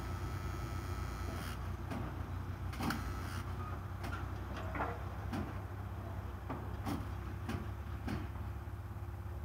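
TD62 diesel pile hammer driving a spun concrete pile: a regular run of sharp knocks, more than one a second, starting about a second and a half in, over a steady low rumble.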